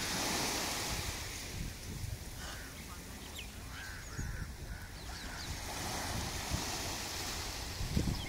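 Small waves washing in at the shoreline, with wind buffeting the microphone and a few faint, short calls in the distance.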